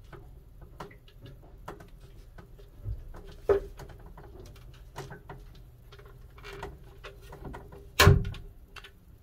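Small handling clicks at a 240 V 50 A ELCI breaker, then one loud sharp snap about eight seconds in as the breaker's switch is flipped by hand to kill the overheating circuit. A faint steady hum runs underneath.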